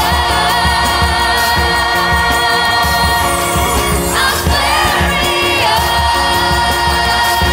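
Live orchestra with strings and a large choir holding a sustained chord over a steady bass beat, while a solo singer's voice slides through a run about four seconds in.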